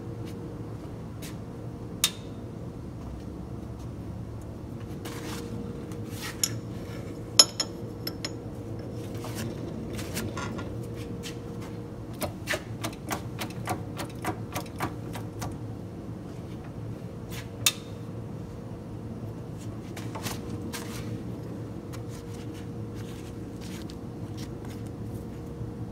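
Shop press bending a small steel bracket against a steel plate: a steady hum under scattered metallic clicks and ticks. There are a few sharp cracks, a brief high metallic ring, and a run of quicker clicks about twelve to fifteen seconds in.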